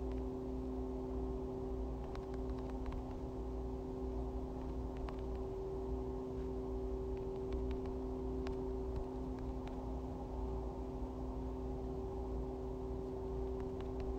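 A steady hum of several held low tones over a faint hiss and low rumble, with a few faint ticks.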